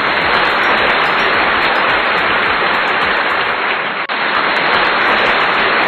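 Audience applauding: dense, steady clapping filling a hall.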